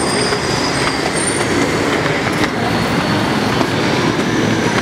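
Loud, steady rumble of heavy passing vehicles, with a couple of brief high squeals in the first second and a half.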